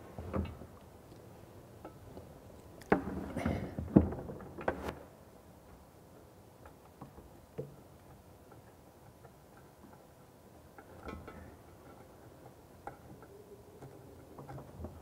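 Light clicks and knocks of plumbing parts and a flexible supply tube being handled under a pedestal wash basin, with a louder cluster of knocks about three to five seconds in.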